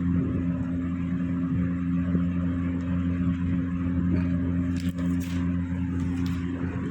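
A steady low mechanical hum, with a few faint clicks about five seconds in.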